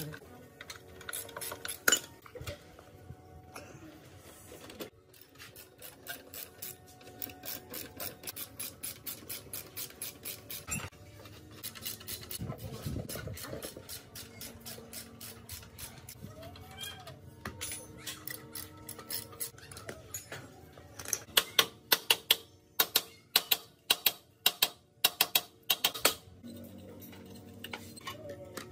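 Metal being worked with hand tools: a run of light, regular taps and scrapes, then, about two-thirds of the way in, around a dozen loud, sharp metal strikes about two a second. Faint background music lies underneath.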